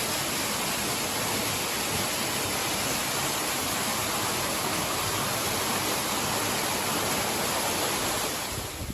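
A steady, loud hiss that dies away just before the end.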